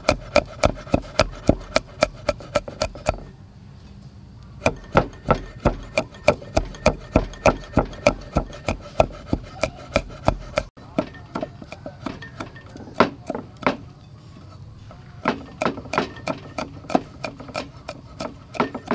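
Cleaver chopping red chilies on a round wooden chopping block: quick, even knocks of the blade on the wood, about four a second, stopping twice for about a second.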